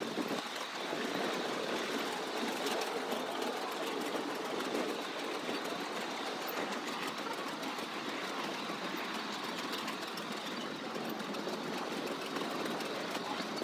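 Steady rattling run of a vehicle in motion, an even mechanical noise with no change through the stretch.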